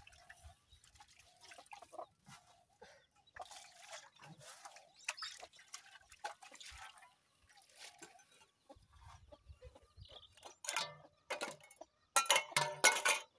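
Water splashing and dripping as metal pots and basins are washed by hand, with light knocks of dishes. About a second before the end a chicken calls loudly, the loudest sound here, after a few shorter calls.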